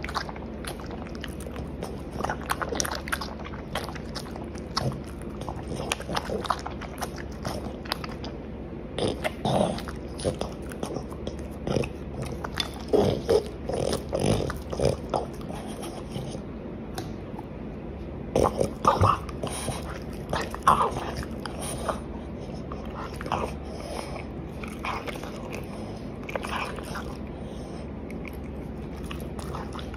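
French bulldog biting and chewing a cooked octopus tentacle, an irregular run of short bites and chews, loudest through the middle stretch.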